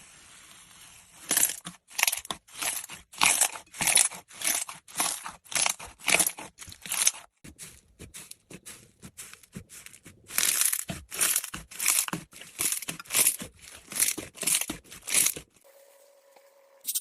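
Slime being squeezed and pressed by hand, making about two squishes a second in two runs with a quieter pause of a couple of seconds between them.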